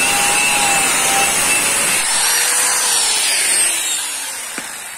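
Handheld angle grinder with a cutoff disc slicing a slot into galvanized square hollow steel pipe. About two seconds in it comes off the cut, and its whine falls steadily as the disc spins down. There is a light click near the end.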